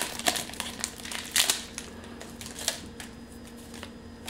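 Foil wrapper of a Pokémon card booster pack crinkling as the cards are pulled out, in short bursts over the first couple of seconds, then only faint handling with a small click.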